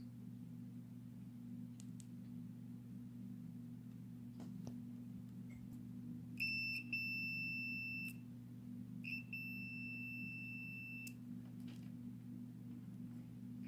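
Multimeter continuity tester beeping twice, each a steady high tone about two seconds long, as the probes touch the cable's negative wire: the beep shows the wire is unbroken. A low steady hum runs underneath.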